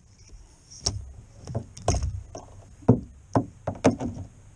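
Sharp plastic clicks and knocks, about eight spread over a few seconds, as a wiper blade is worked off its wiper arm.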